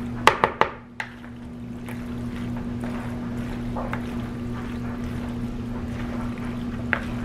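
A spatula stirring wet macaroni, shredded cheese and milk in a large glass bowl: soft squelching and scraping, with a few sharp clicks of the spatula against the bowl about half a second in.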